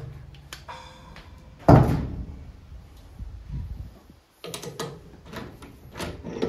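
A single heavy hammer blow on a Yamaha Tri-Z 250 two-stroke crankshaft held in a lathe chuck, knocking the pressed flywheels into true against a dial indicator. It is followed by lighter metal clicks and knocks of a wrench and chuck key being handled on the lathe.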